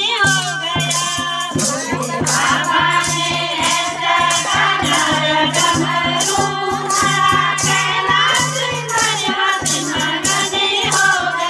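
A group of women singing a Hindi devotional bhajan to Shiva, a lead voice through a microphone with others joining in, while a rattling percussion instrument and clapping keep a steady beat over a low drone.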